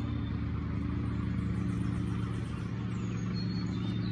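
Steady low mechanical hum made of several even low tones, like a motor or engine running without change, with a few faint short high-pitched chirps over it near the start and the end.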